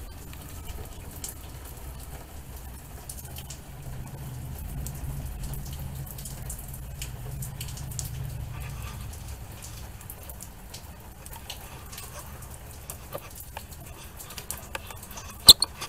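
Rain dripping and pattering in scattered ticks, under a low rumble of distant thunder that swells for several seconds in the middle. Two sharp clicks close together near the end are the loudest sounds.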